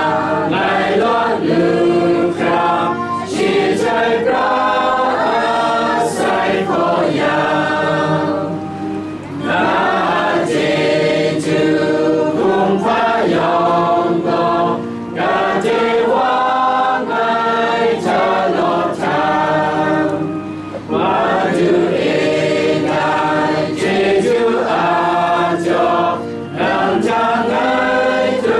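A choir of many voices singing a hymn together, in phrases with short pauses between them.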